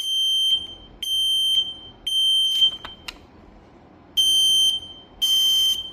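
Quell Q301H photoelectric smoke alarm (a rebranded Kidde) sounding its loud, high-pitched alarm beeps on test in the temporal-three pattern: three beeps, a pause of about a second and a half, then the next round begins. The last beep comes out harsher and buzzier.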